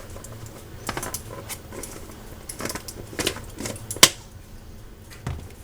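Kitchen utensils and containers being handled while bouillon powder goes into the soup pot: scattered clicks and clinks, with one sharp knock about four seconds in, over a low steady hum.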